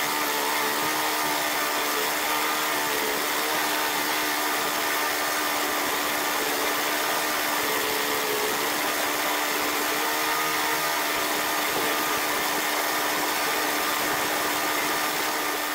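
Walk-behind lawn mower's Briggs & Stratton Classic single-cylinder engine running steadily under load while cutting grass, its crankcase filled with peanut oil in place of motor oil. The engine holds one even pitch and level throughout with no stumbling, so it is running fine on the plant oil so far.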